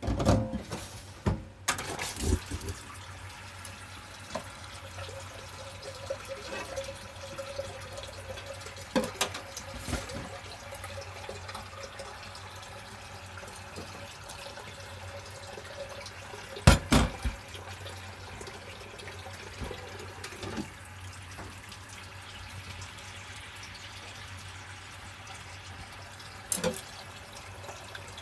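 A pot of miso soup simmering on a gas stove: a steady bubbling, broken by a few clinks and knocks of utensils against the pot, the loudest about two-thirds of the way through.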